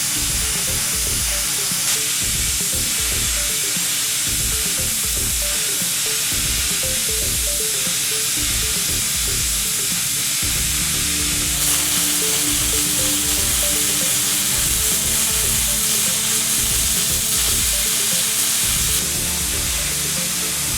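MIG welding arc under an argon-based shielding gas mixture, crackling and sizzling steadily. The hiss grows louder and brighter from about halfway in until shortly before the end.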